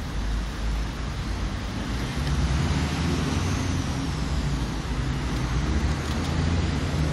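Motor vehicle engine running nearby with a steady low hum, growing louder about two seconds in.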